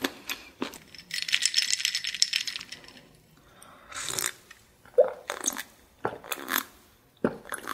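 Ice cubes rattling and clinking in a glass mug of iced drink for about two seconds, then a series of gulps and swallows as the drink is drunk.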